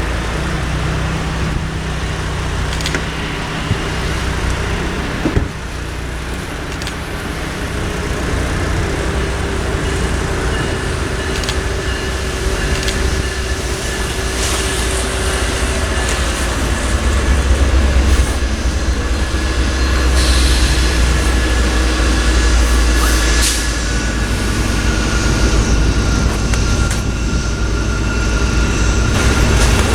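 Commuter rail train running by: a steady low rumble that swells in the middle, with faint steady tones above it and a few clicks.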